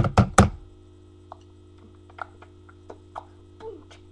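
Ahead drumsticks, metal-cored with plastic sleeves, knocking three times in quick succession at the start, then light scattered clicks and taps as they are handled.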